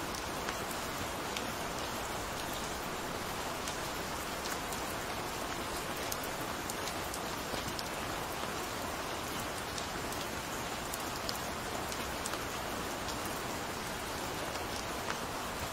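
Gentle rain falling steadily, an even hiss with scattered sharp ticks of single drops hitting a surface.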